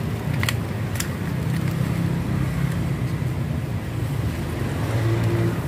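A steady low engine hum, with a few short clicks about half a second and a second in.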